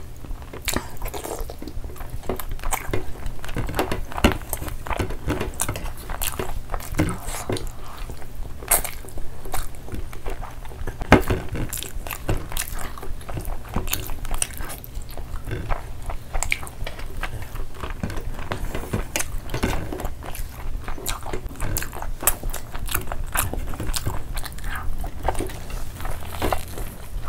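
Close-miked chewing and wet mouth clicks of two people eating curry and rice by hand, many short clicks and smacks throughout. A sharper click comes about 11 seconds in.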